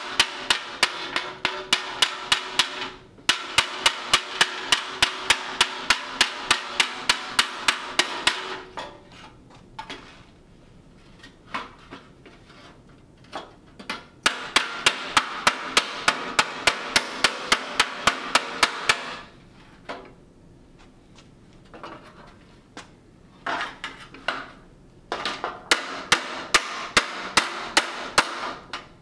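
Hammer blows on the sheet-steel 1935/36 Ford dash held against an anvil, hammering a torn, badly cut seam back together. Quick, ringing metal strikes at about four a second come in runs of several seconds, broken twice by pauses with only a few scattered blows.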